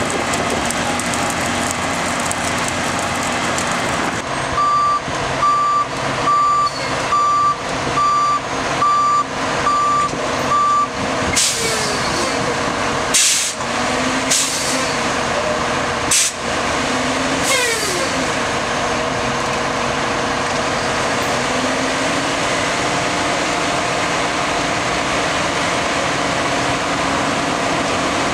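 Flash-butt rail welding truck running steadily, its backup alarm beeping about one and a half times a second for several seconds, followed by about five short, sharp air hisses as the welding head is brought over the rail.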